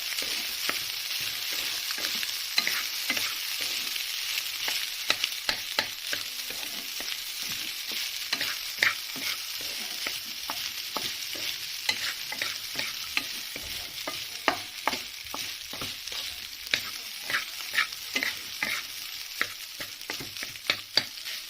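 Egg fried rice sizzling in an oiled kadai while a spatula stirs and tosses it, with frequent irregular scrapes and taps of the spatula against the pan.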